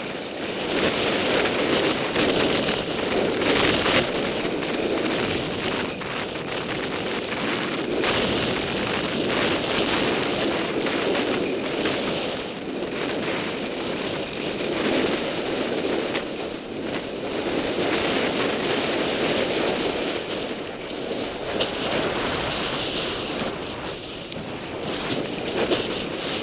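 Wind rushing over the microphone of a camera moving fast down a ski run, mixed with the hiss and scrape of edges carving groomed snow. The rush rises and falls in waves every few seconds.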